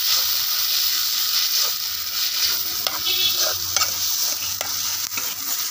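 Sliced potatoes and onions sizzling as they sauté in hot oil in a metal kadai, with a metal spoon scraping and clicking against the pan every second or so as it is stirred.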